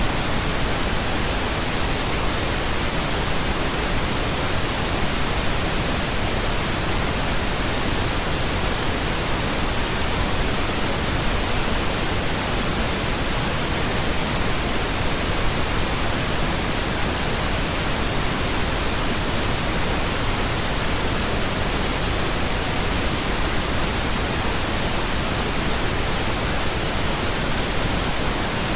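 Pink noise: a steady, even hiss spread across all pitches, unchanging throughout.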